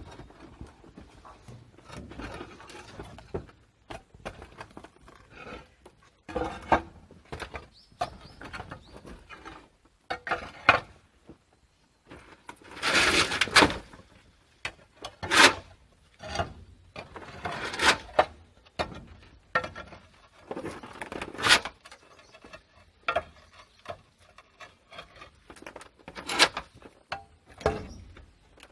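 Irregular scrapes, rustles and knocks of someone moving about and handling things in a cramped roof space. The loudest scraping comes in several bursts through the middle of the stretch.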